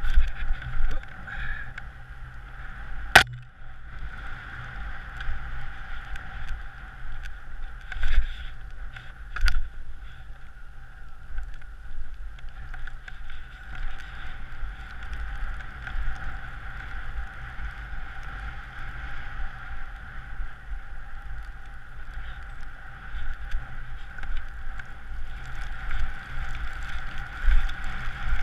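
Wind buffeting a helmet-mounted GoPro's microphone and skis sliding over snow on a downhill run, a steady rush with an uneven low rumble. A single sharp click about three seconds in, with a few softer knocks later.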